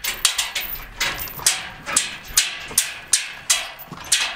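Footsteps knocking on the plank deck of a metal-framed footbridge, about two steps a second.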